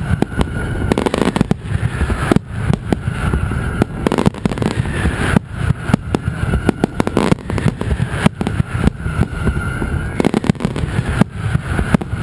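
Mascletà: strings of firecrackers going off in a dense, irregular barrage of sharp bangs, with a high whistling tone that comes and goes.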